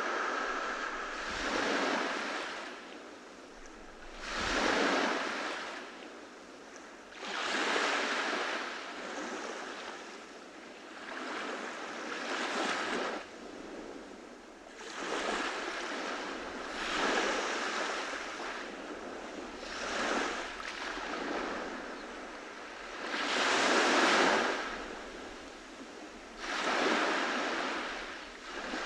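Waves breaking on a beach one after another, each surge of surf swelling and fading every two to four seconds, with the largest near the end.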